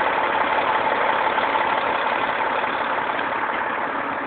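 A steady engine running at idle, an even hum with a faint steady tone.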